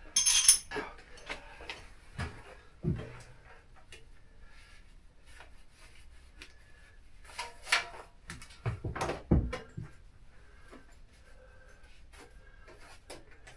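Tools being handled and put away: scattered clanks and knocks, the loudest right at the start and a cluster of them about seven to nine and a half seconds in.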